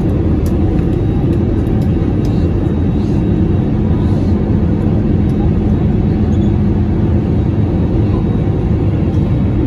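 Steady cabin drone of a jet airliner in flight: engine and airflow noise, heard from a window seat beside the wing. A low, even rumble with a faint steady hum, unchanging throughout.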